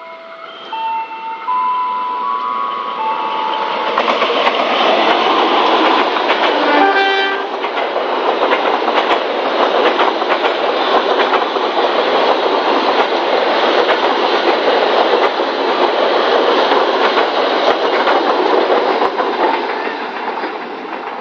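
A short electronic chime melody of single notes, then a diesel-hauled passenger train passes at speed: a loud rush of running noise with wheels clicking over the rail joints. The locomotive gives a brief horn blast about seven seconds in, and the train noise fades near the end.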